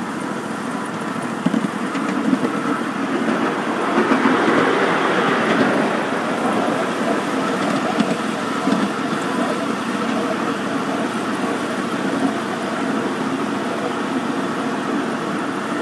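Ride-on 7¼-inch gauge miniature railway locomotive (a model SD40-2) running along the track: a steady mechanical drone of the running train, with a few sharp clicks.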